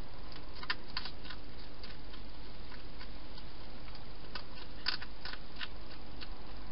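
Hedgehog eating from a bowl: irregular crisp clicks of chewing, a cluster about a second in and another near five seconds, over a steady hiss.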